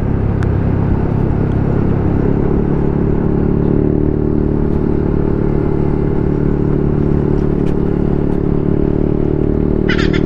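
Motorcycle engine running while riding, settling to a steady pitch after about two seconds, with wind noise on the onboard microphone.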